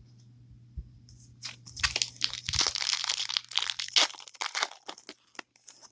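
Foil wrapper of a trading card pack being torn open and crinkled, a dense crackling for about three seconds.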